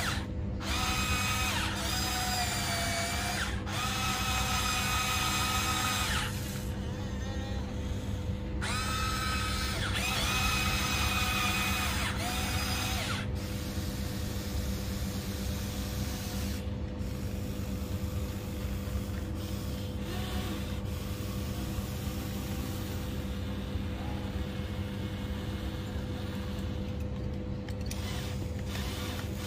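Huina 1594 RC excavator's small electric gear motors whining in stretches of a few seconds as the boom, arm and tracks are driven. The pitch glides at the start and end of each stretch, and most of this comes in the first half. A steady low hum runs underneath.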